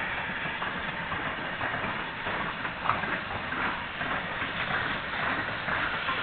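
Steam locomotives, an LMS Jubilee 4-6-0 and then a GWR 4-6-0, rolling slowly past at close range: a steady rolling noise broken by short, repeated knocks from the moving engines.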